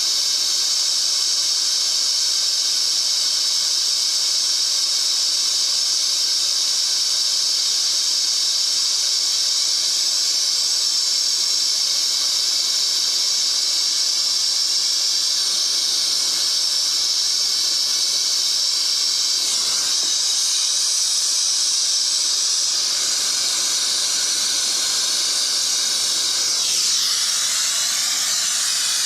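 Brazing torch flame hissing steadily on copper refrigerant line joints. Near the end the hiss changes, with a sweeping shift in pitch.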